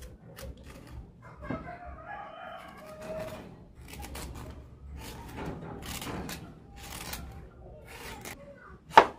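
A rooster crows once in the background for about two seconds, over a knife knocking and cutting on a cutting board as a cucumber is cut up. There is a louder knock of the knife on the board near the end.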